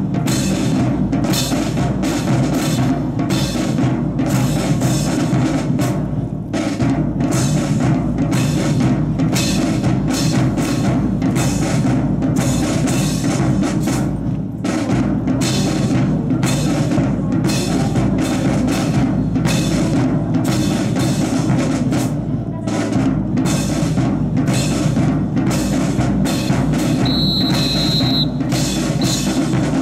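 Band drums, bass and snare, playing a steady marching beat, with a brief high tone near the end.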